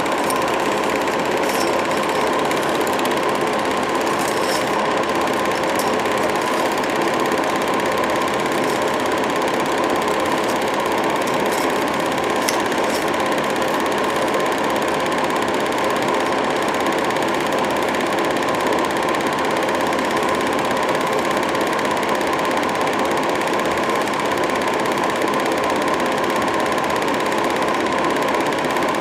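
Home-movie film projector running steadily, its film-advance mechanism giving a continuous even mechanical noise with a steady hum beneath.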